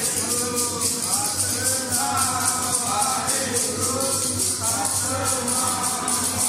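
Sikh devotional hymn singing with a jingling hand percussion keeping a fast, steady beat.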